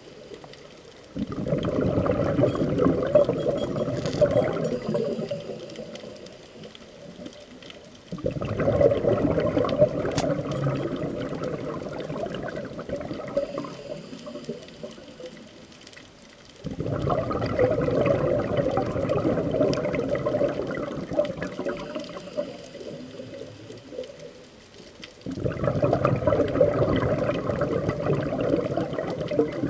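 Scuba diver's exhaled bubbles rushing out of the regulator underwater. There are four bubbling bursts about eight seconds apart, one per breath, each starting suddenly and fading over several seconds.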